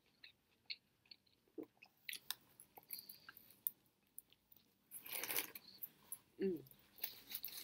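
A person chewing a mouthful of toasted sub sandwich close to the microphone: soft wet mouth clicks and smacks scattered throughout. A brief louder noisy sound comes about five seconds in, and a short hum about a second later.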